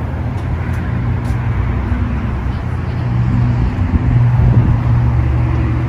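Steady low hum of idling car engines, with a noisy haze of road traffic behind it; the hum gets a little louder about four seconds in.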